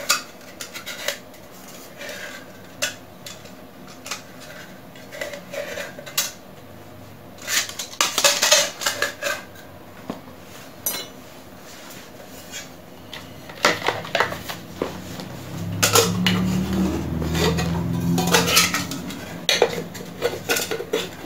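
Thin aluminium camp mug, its aerosol-can aluminium lid and other cans clinking, knocking and scraping together as they are handled and nested into one compact set. Scattered clicks and taps, with a longer stretch of metal rubbing on metal a little after the middle.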